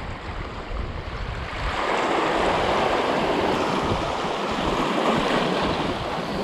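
Small sea waves washing over a rocky shore shelf, a steady hissing wash that swells up about two seconds in and eases near the end. Wind rumbles on the microphone at the start.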